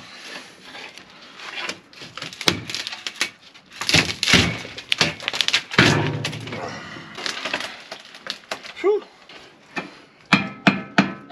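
Old wooden floor of a caravan chassis being torn out by hand: irregular cracking, splintering and knocks as the decayed boards break away in pieces, loudest about four and six seconds in.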